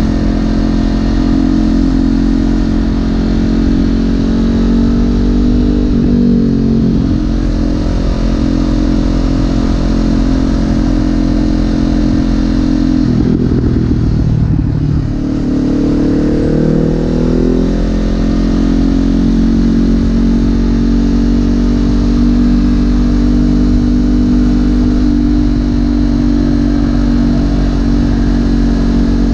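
Honda CB500F's parallel-twin engine running under way, heard from the rider's seat. Its pitch drops and climbs back around six seconds in, and again more deeply between about thirteen and seventeen seconds, as the bike slows and picks up speed again.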